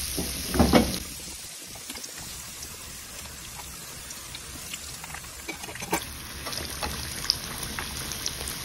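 Pancake batter deep-frying in hot oil, which is sizzling and bubbling steadily with scattered small crackles. A brief bump sounds near the start, and a sharp click about six seconds in.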